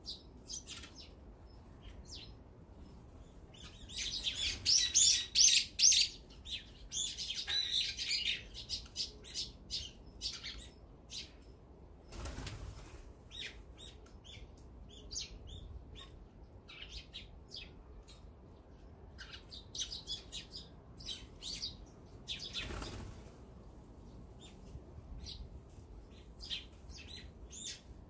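Small songbirds chirping and chattering, with a loud burst of rapid calls a few seconds in. Twice, a short flutter of wings as a bird flies.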